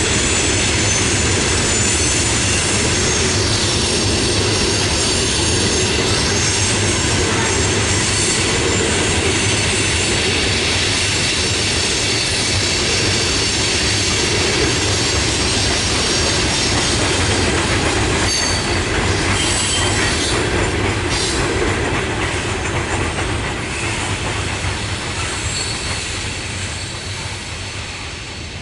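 Loaded coal cars of a freight train rolling past on the rails, a steady rumble of wheels and cars with a few brief high wheel squeals about two-thirds of the way in. The sound fades gradually over the last several seconds.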